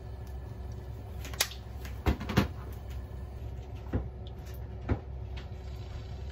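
Sharp clicks and knocks from handling a sesame-oil bottle and tubes of garlic and ginger paste over a frying pan, about five in all, the loudest a pair about two seconds in, over a steady low hum.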